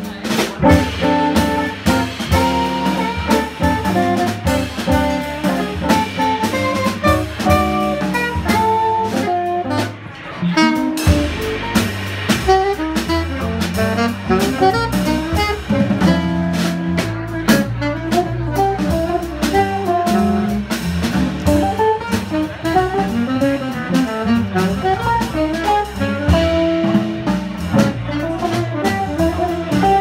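Live jazz quartet playing: saxophone, guitar, bass and drum kit together. The level dips briefly about a third of the way in, and the low bass notes come in fuller after it.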